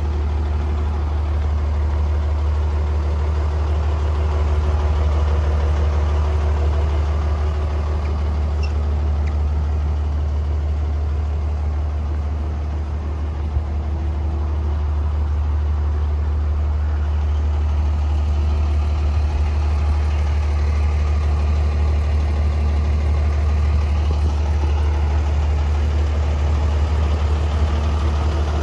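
Komatsu WA100-3 wheel loader's diesel engine idling steadily with a deep, even hum.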